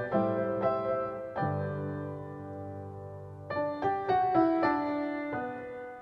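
Background piano music: slow struck notes and chords that ring and fade, with a held chord about a second and a half in and a run of new notes about halfway through.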